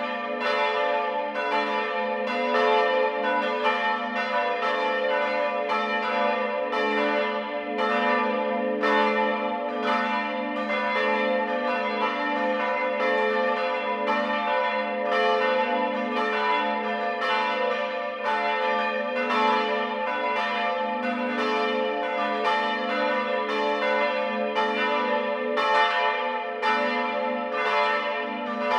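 Several church bells swinging and ringing together in a full peal. Their strikes come in a continuous, uneven sequence over a steady bed of lingering bell tones.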